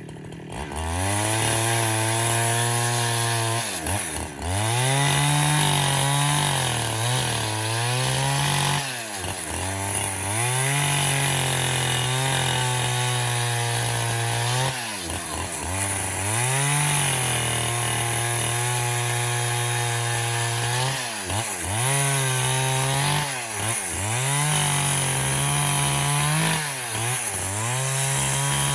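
Husqvarna 372 XP two-stroke chainsaw running at high revs, repeatedly dropping off and climbing straight back up in pitch as the throttle is let off and opened again.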